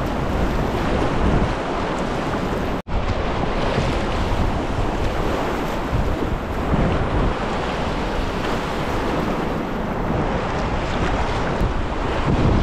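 Rushing whitewater of a river rapid surging around an inflatable packraft, a steady loud churning of water that cuts out for an instant about three seconds in.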